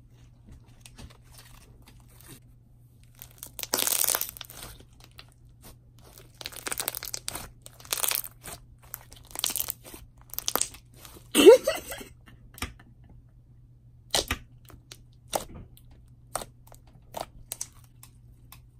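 Thick, glossy slime being stretched, squeezed and poked by hand, giving short bursts of sticky crackling and squishing. The loudest comes about eleven seconds in with a brief rising squeak, followed by a few scattered clicks near the end.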